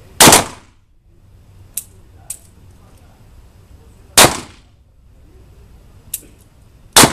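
Revolver shots fired one at a time: three loud shots, about four and then three seconds apart, each with a short echo tail, and a few fainter, sharper cracks between them.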